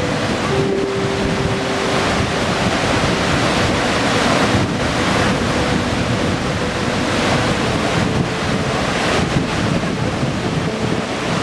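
Loud, steady rushing roar of a waterfall, with wind buffeting the microphone.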